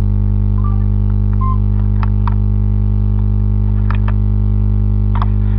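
Loud, steady electrical mains hum with many overtones, with a few faint short clicks.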